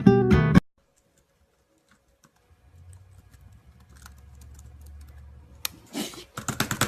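Acoustic guitar music stops half a second in. After a quiet stretch with a faint low hum, a sudden loud noise comes near the end, then a rapid run of sharp clicks, several a second.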